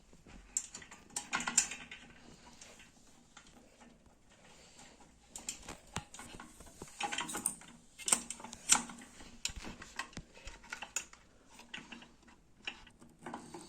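Scattered light clicks and taps of small parts of an opened clothes iron being handled, coming in bunches with a few louder knocks about halfway through.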